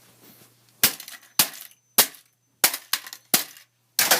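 Six sharp crashing impacts, about one every half to two-thirds of a second: hard computer parts hitting a PC case as it is put back together.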